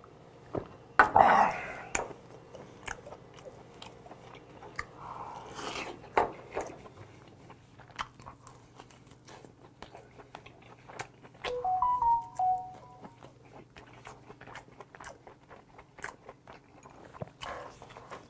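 Chewing and mouth sounds of eating boiled monkfish, with a loud breath out after a shot of soju about a second in. Around twelve seconds a mobile phone's notification chime plays a short run of a few electronic notes.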